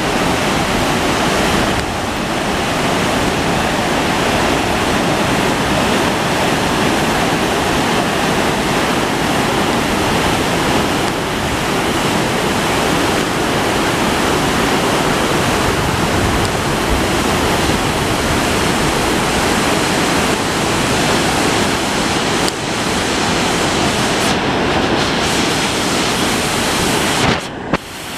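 Water pouring through the open gates of a river dam's spillway, a steady rush of falling, churning water.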